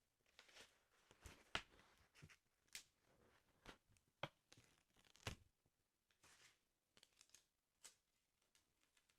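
Faint paper handling on a sticker album: irregular soft taps, clicks and brief rustles from fingers working the pages, a dozen or so short sounds.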